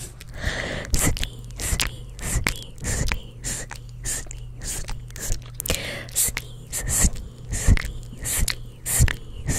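Gum chewed right against a microphone: a string of sharp, wet mouth clicks and smacks, a few a second, with a couple of brief soft whispers between them.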